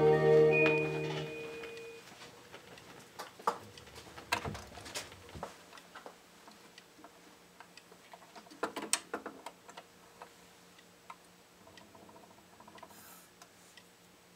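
A doo-wop 45 rpm single ending on a turntable: the last held chord fades out over the first two seconds. Then only faint surface noise and scattered clicks are left as the record runs out and stops.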